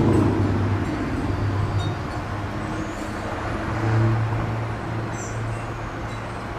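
Diesel locomotive engines running as a freight train moves, a steady low drone that eases off and then swells again about four seconds in.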